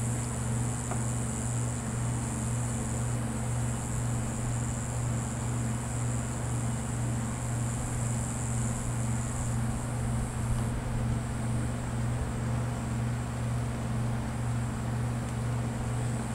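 Steady low machine hum with a faint high hiss over it, both constant throughout.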